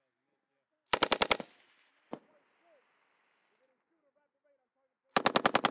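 M240B 7.62 mm machine gun firing short bursts at about ten rounds a second: a burst of about five rounds about a second in, a single sharp crack a second later, and another burst starting near the end.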